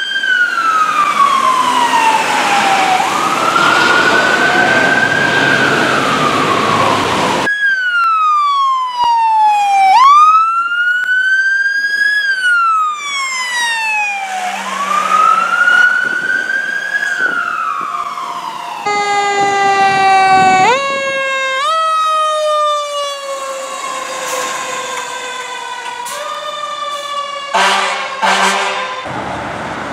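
Fire truck sirens wailing: the pitch climbs quickly, then slides down over a few seconds, again and again, with the sound cutting abruptly to a different siren twice. Later a siren with stepped, faster rises is heard, and a few short blasts sound near the end.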